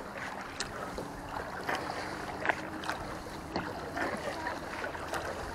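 Kayak paddling: the blades dip and pull through choppy water, giving irregular light splashes and drips about twice a second, over a steady wash of small waves against the plastic kayak hull.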